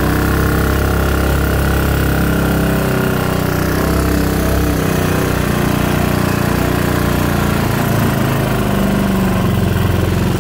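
Modified Honda GX200 single-cylinder engine on a longtail mud motor, fed by a Tillotson TCT mechanical fuel injection carburetor, running steadily with small shifts in pitch.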